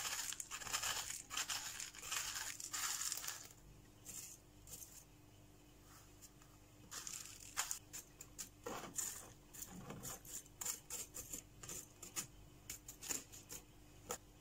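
Kyodama top-dressing granules pouring and rattling from a plastic tub into a small pot for about the first three and a half seconds. After a lull, metal tweezers nudge the granules into place around the cactus, making a scatter of light clicks.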